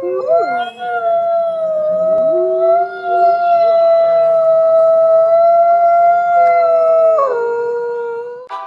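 Wolf howling: one long, steady, loud howl that drops in pitch near the end, with a second, lower howl wavering beneath it.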